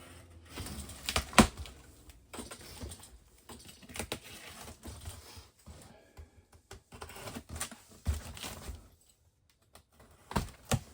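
Packing tape being cut and pulled off a cardboard shipping box: irregular clicks, scrapes and rustles, with one sharp click about a second and a half in and a brief lull near the end.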